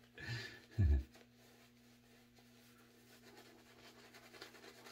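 Shaving brush swirling shave cream over three days' beard stubble, a faint scratchy brushing. A short low sound about a second in stands out above it.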